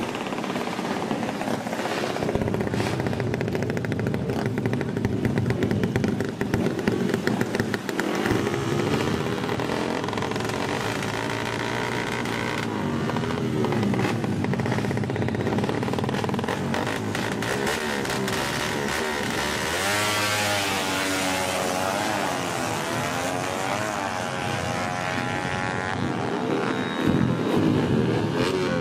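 Small underbone racing motorcycles with aftermarket exhausts idling and revving, with several quick rising and falling revs about twenty seconds in.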